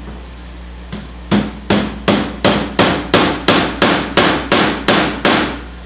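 A hammer striking a quick, even run of about a dozen blows, roughly three a second, fastening the pulled linen canvas to the wooden stretcher bar.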